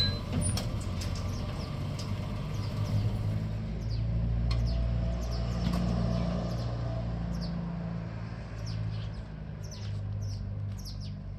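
A car engine running steadily at low revs, a low rumble that eases off a little toward the end, with small birds chirping now and then.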